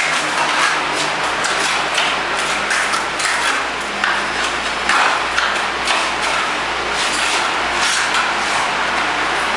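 Irregular scraping and knocking of a hand tool against the rendering machine's metal frame as caked mortar is cleaned off, over a steady hiss.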